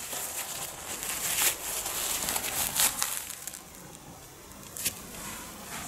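Disposable nappies rustling and crinkling as a hand handles them, a dense run of small crackles that dies down about halfway, with a single sharp click near the end.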